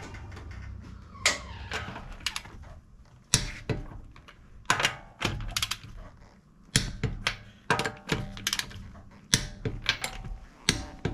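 Sharp metallic clicks and knocks, at uneven spacing and often in quick pairs or threes, from a torque wrench on a Range Rover Sport's wheel lug nuts being tightened to 105 ft-lbs.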